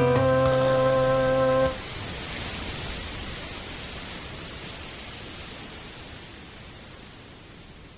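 The last held chord of the song's accompaniment, which cuts off about two seconds in, followed by a steady hiss that slowly fades away.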